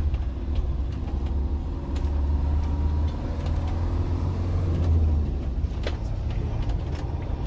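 Motorhome driving, its engine and road noise heard from inside the cab as a steady low rumble, with a single click near the end.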